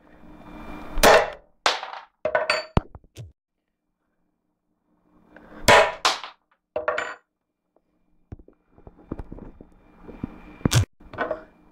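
Hammer blows on a nut, a series of sharp knocks. The loudest come about a second in, around six seconds and near the end, with lighter knocks between them.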